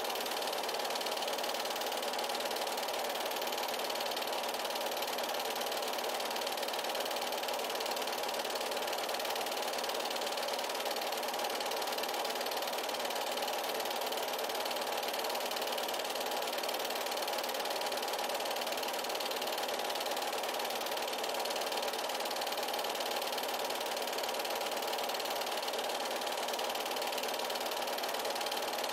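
An 8mm film projector running, a steady mechanical whir.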